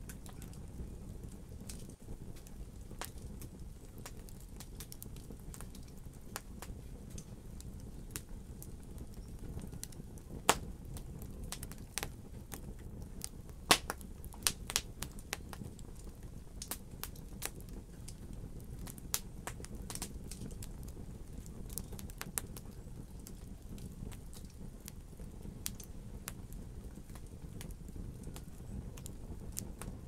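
Wood logs burning in a fireplace: a low steady rumble of flame with irregular sharp crackles and pops. The loudest pops come about ten and fourteen seconds in.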